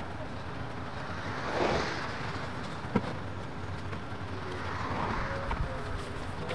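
Cars passing on a residential street, two swells that rise and fade, one about two seconds in and one about five seconds in, over a steady outdoor background. A single sharp click sounds about three seconds in.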